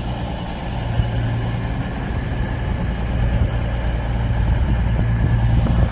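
Avanti West Coast Class 221 Super Voyager's underfloor diesel engines running with a steady low hum at the platform, growing a little louder toward the end.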